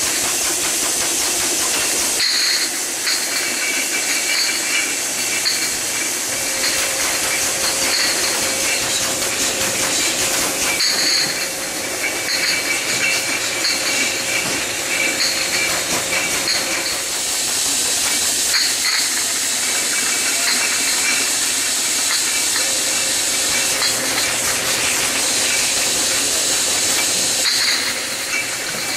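Multi-head overflow liquid filling machine running as it fills bottles on its conveyor: a steady hiss of air and liquid, with light clicks and clinks recurring about once a second.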